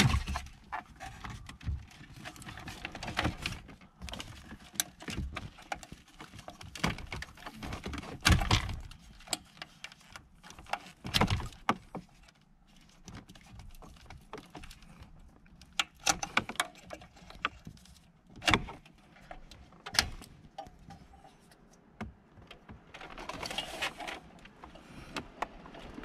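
Scattered clicks, knocks and rattles of plastic trim and wiring-harness connectors as the factory Nissan Titan head unit is pulled from the dash and its plugs are worked loose, with sharper clicks clustered several times through.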